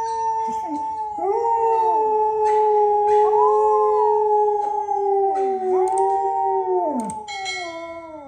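Samoyed dog howling: long howls held on a nearly steady pitch, with a second howl joining about a second in and bending up and down against the first, fading away near the end.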